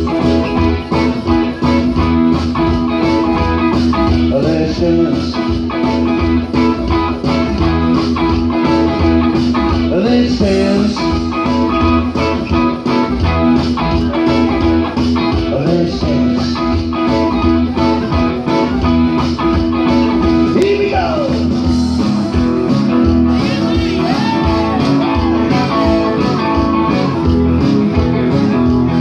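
Live band music played through a PA speaker: electric guitar over a steady beat, with a few sliding notes.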